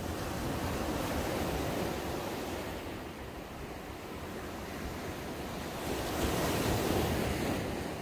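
Small sea waves breaking and their foam washing up a sandy beach: a continuous surf wash that swells and eases, with the loudest surge about six seconds in.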